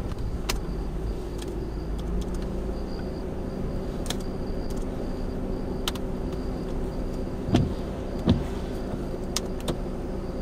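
Steady low hum of an idling vehicle engine, with scattered sharp clicks and two short thumps about three-quarters of the way through.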